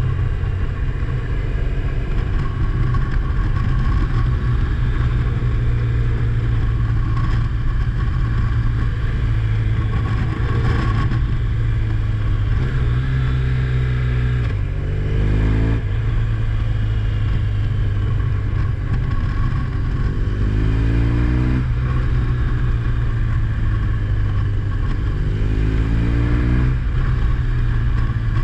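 Car engine running on the road over a steady low drone. Its pitch climbs and drops back three times as it accelerates and shifts gear.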